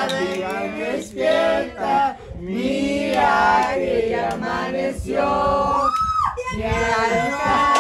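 Several voices singing together, with a single high tone gliding up and falling away about six seconds in.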